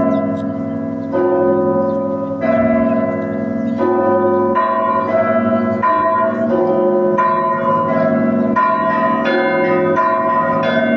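Russian Orthodox monastery bells of several pitches ringing together in a festal peal, with each stroke's tones overlapping the ring of the last. The strokes come slowly at first, then quicken about halfway through to almost two a second.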